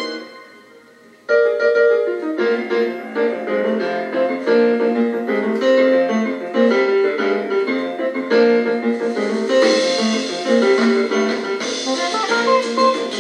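Piano and keyboard music playing through a Panasonic flip clock radio's small speaker, thin with no bass. It fades away at the start, and a new passage begins abruptly about a second in.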